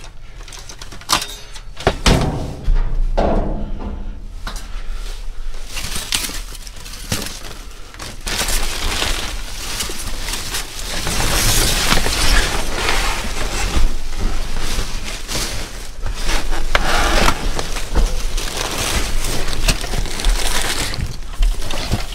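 Rummaging through trash in a dumpster: plastic bags and sheeting crinkling and rustling, with scattered clicks and clatters of objects being moved. The rustling grows thicker and louder about eight seconds in.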